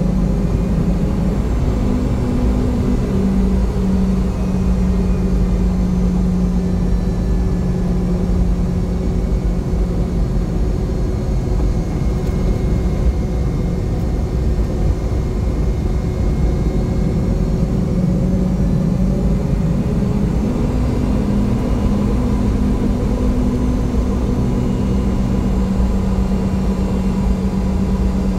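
Boeing 717's rear-mounted Rolls-Royce BR715 turbofan engines running steadily, heard from inside the cabin as the jet rolls slowly after landing. A constant hum with a low drone and a fainter higher tone; the drone weakens for a few seconds midway.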